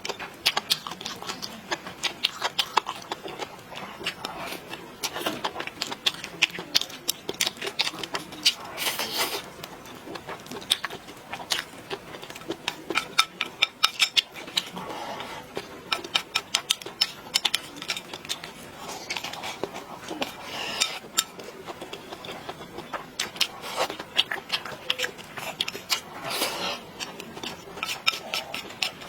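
Close-up eating sounds: irregular clicks of chewing and mouth noises, with cutlery clinking against dishes.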